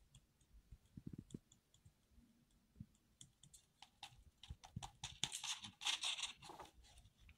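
Sketchbook paper being handled and its page turned: scattered light taps and clicks, then a brief papery rustle about five seconds in.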